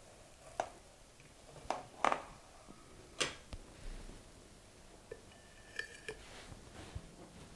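Serrated bread knife cutting through a cake with a set chocolate couverture glaze, giving a few sharp cracks and scrapes. Then light clinks of the knife against a porcelain plate, one with a brief ring, as the slice is set down.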